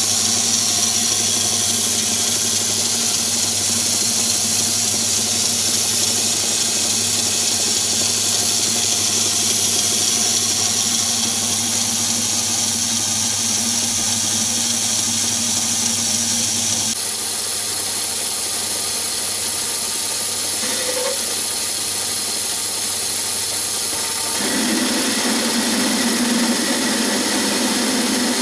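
Myford ML7 lathe running with its spindle at about 720 rpm while turning a bar: a steady machine hum and whine. The sound changes abruptly twice, about two-thirds of the way in and again near the end.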